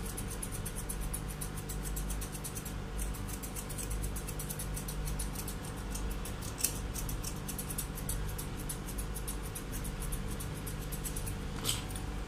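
Grooming scissors snipping a Pomeranian's fur in a rapid, steady run, several snips a second, while its face is trimmed short.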